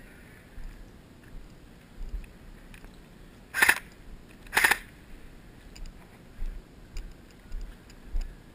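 Two airsoft gun shots about a second apart, short sharp cracks about halfway through, over faint ticks and knocks of movement and gear.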